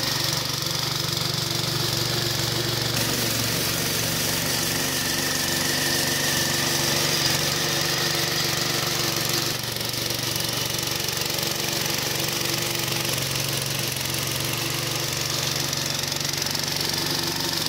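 Walk-behind two-wheel tractor's small single-cylinder petrol engine running steadily under load, driving a front rotary sweeper brush that hisses as it scrubs wet slurry and mud off concrete. The sound shifts abruptly twice, about three and ten seconds in.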